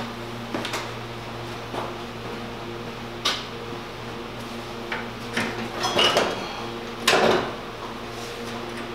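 Hand tools and metal parts clinking and knocking as someone works on a golf cart's engine mounts: short sharp clanks every second or two, the loudest about seven seconds in, over a steady low hum.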